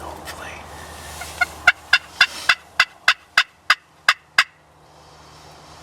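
A series of about a dozen turkey hen yelps, evenly spaced at roughly four a second and lasting about three seconds, sharp and raspy as from a hunter's turkey call.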